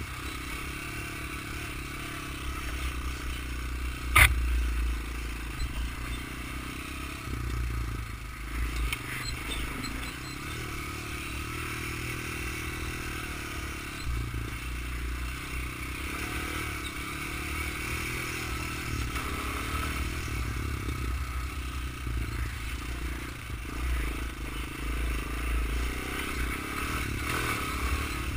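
Honda 250EX quad's single-cylinder four-stroke engine running as it is ridden across a lawn, its pitch rising and falling with the throttle, over wind rumble on the helmet-mounted camera. A single sharp knock about four seconds in.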